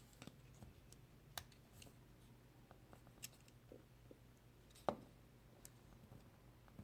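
A few faint, sharp clicks from an Imperial scout pocket knife being handled, its blades opening and snapping shut against the backspring; the loudest comes about five seconds in.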